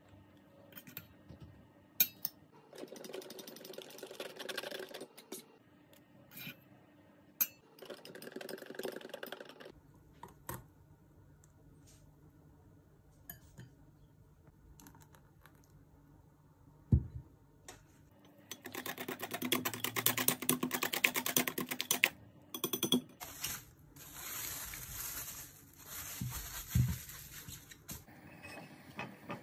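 Kitchen prep sounds: a few sharp clinks and short bursts of scraping in the first half, then a wire whisk beating batter against a glass bowl in rapid strokes for a few seconds past the middle, then cling film crinkling as it is stretched over the bowl near the end.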